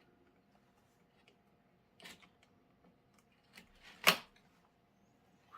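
Scattered plastic clicks and taps from handling a zip tie and the fan's plastic parts while threading the tie through a hole, the sharpest click about four seconds in.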